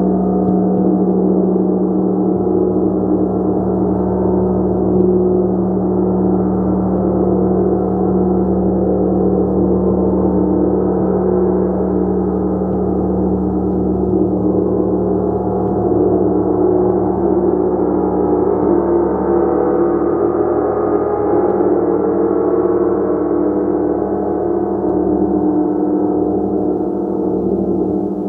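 Gong played without pause: a steady wash of many overlapping ringing tones over a strong low hum, with no single strike standing out.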